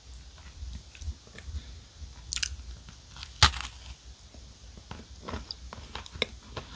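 A bite into a chocolate-shell mini muffin cupcake on a chocolate sandwich cookie: one sharp crack about three and a half seconds in, with smaller crunches before it and wet chewing clicks after.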